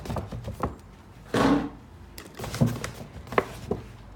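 A shopping bag being handled, with short rustling swishes and a few light knocks and clicks.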